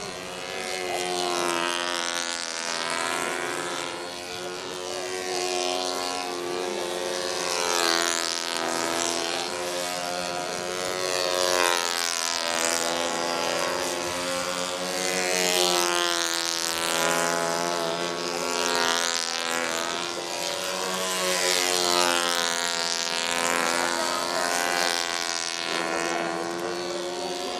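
Several small radio-controlled model-aircraft engines buzzing overhead together, their pitch rising and falling again and again as the planes swoop past.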